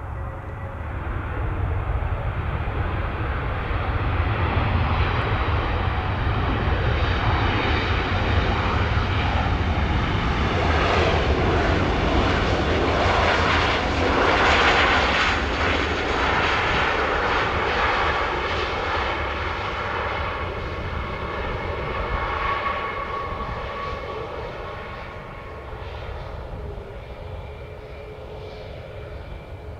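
Boeing 737 MAX jet with CFM LEAP-1B turbofan engines passing by: the engine noise and fan whine swell, peak about halfway through, then fade, the whining tones dropping slightly in pitch as it goes.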